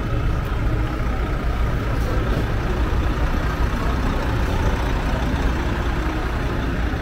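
City street traffic: a steady low rumble of vehicle engines.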